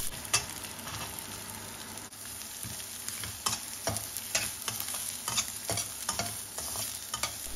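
Chopped vegetables sautéing in hot oil in a stainless steel kadai: a steady sizzle, with scattered clicks and scrapes as a metal spatula stirs them around the pan.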